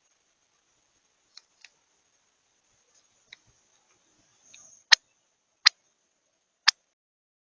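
Sharp taps and clicks at a bird feeder, picked up by the feeder camera's microphone. A few faint taps come first, then three loud ones about a second apart near the end, over a faint steady hiss.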